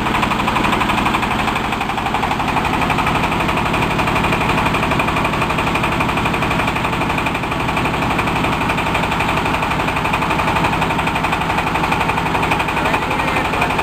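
Fish-feed pellet machine running steadily, a fast, even pulsing over a constant mechanical drone.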